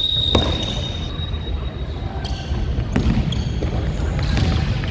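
Futsal ball kicked and bouncing on a hard wooden indoor court, with sharp thuds about a third of a second in and again around three seconds in, ringing in a large echoing hall. A thin, steady high tone is held for about the first two seconds.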